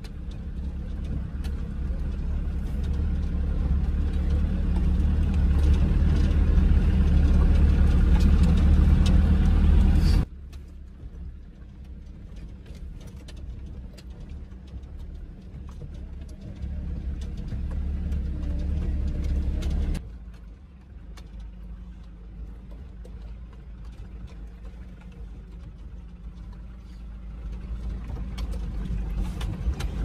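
A vehicle driving on an unpaved dirt road, heard from inside: a steady low rumble of engine and tyres with road noise over it. The level falls sharply about ten seconds in, drops again around twenty seconds and swells back up near the end.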